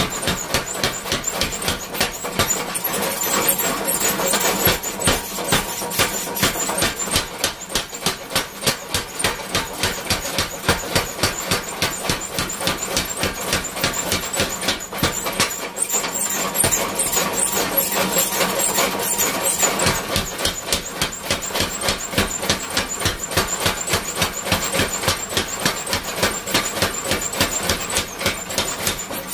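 Homemade 80 lb spring power hammer running, its ram striking a red-hot steel bar on the anvil in a fast, even train of blows, several a second.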